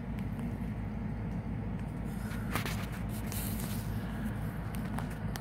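A steady low hum of background noise, with a brief rustle of the camera being handled a little past halfway and a faint click near the end.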